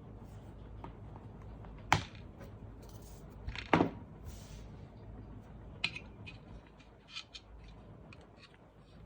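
Handling of a tablet and its packaging: two sharp knocks about two and four seconds in, the second the loudest, then light ticks and short rustles.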